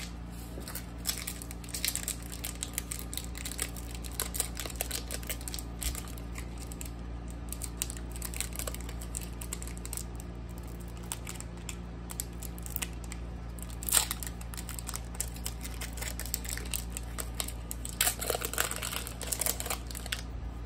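Foil wrapper of a Pokémon trading-card booster pack crinkling and tearing as it is opened by hand, with scattered crackles, one sharp crackle a little past the middle and a burst of crinkling near the end, over a steady low hum.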